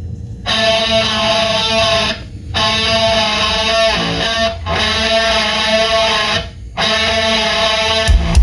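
A rock song with sustained electric guitar chords, played back through a home stereo's speakers. The chords ring in phrases about two seconds long with short breaks between them, and heavy bass comes in near the end.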